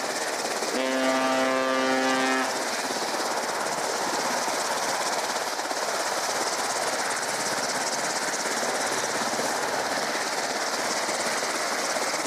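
Steady roar of aircraft engines running on a carrier flight deck. For the first two and a half seconds a steady hum with many overtones sounds over it, then cuts off.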